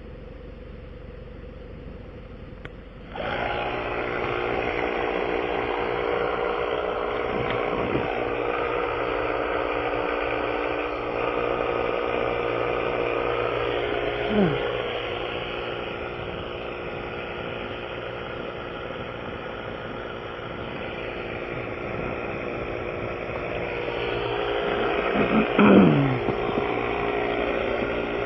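Portable air compressor switching on abruptly about three seconds in and running steadily as it inflates the freshly repaired tire, over a low engine idle. Two short falling squeaks cut through, near the middle and near the end.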